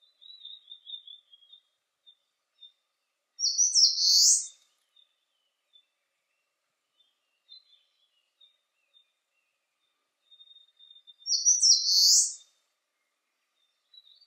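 Eastern crowned warbler singing: two songs about eight seconds apart, each lasting about a second. A faint, quick descending trill from another bird comes at the start, with scattered faint notes between the songs.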